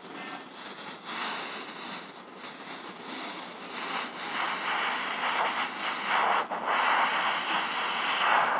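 Hissing flame of a homemade blow torch on a magnesium ribbon as the ribbon ignites and burns. The noisy hiss grows louder from about four seconds in, with a few crackles.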